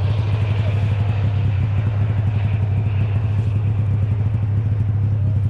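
Snowmobile engine idling steadily, a low even drone with a fast regular pulse.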